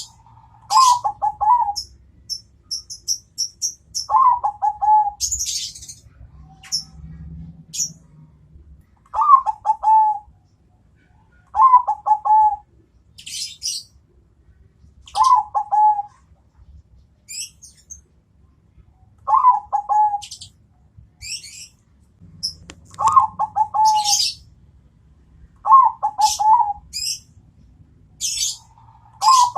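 Bangkok-type perkutut (zebra dove) singing its contest song: a short rolling coo phrase repeated about nine times, every two to four seconds. Short high chirps from other small birds come in between the phrases.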